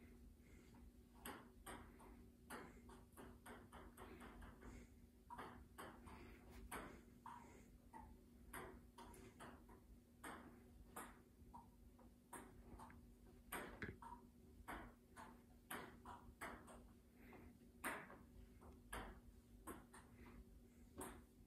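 Table tennis rally: a ping-pong ball clicking faintly back and forth off paddles and table in quick alternating runs, with short pauses between points. A steady low hum runs underneath.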